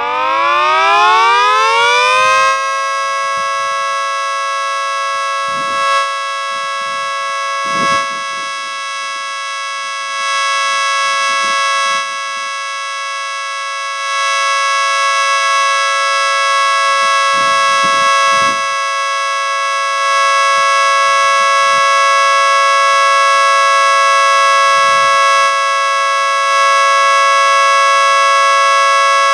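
Mini 3T22B, a small-scale replica of the American Signal 3T22 three-tone siren, winding up in pitch over the first two or three seconds and then holding a loud, steady multi-tone chord: the steady Alert signal. Its loudness steps up and down slightly while the chord holds.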